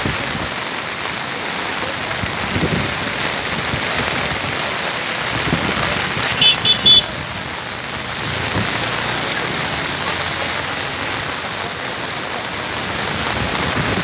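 Steady heavy rain falling on a wet road, mixed with the rushing of a river in flood. About six and a half seconds in, a few quick high beeps cut through briefly.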